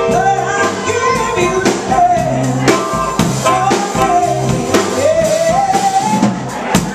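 Live rock band playing: a singer's voice over electric bass guitar and drum kit.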